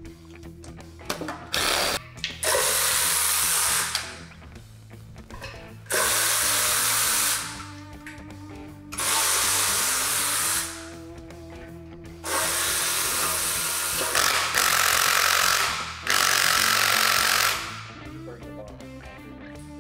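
Hand-held cordless power tool spinning bolts out of a Small Block Chevy 350 during teardown, running in about seven bursts of one to two seconds each with short pauses between, over background music.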